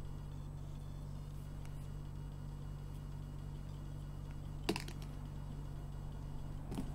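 Steady low hum, with two small sharp clicks, the first about two thirds of the way in and a fainter one near the end, as hands handle a leadcore carp rig.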